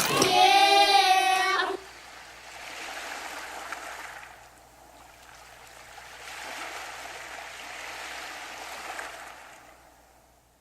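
A held, wavering vocal note that cuts off suddenly after about two seconds, followed by a softer wash of water sound that swells twice and fades out.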